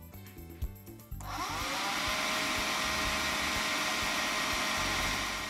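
Heat gun switched on about a second in, its fan motor spinning up with a rising whine into a steady blowing rush, used to shrink heat-shrink tubing over freshly soldered switch wires; it falls away at the very end. Quiet background music underneath.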